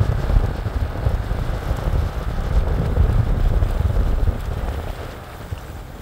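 Wind buffeting the microphone over the low rumble of a slowly moving vehicle. The rumble is gusty and uneven, and it eases off over the last second or two.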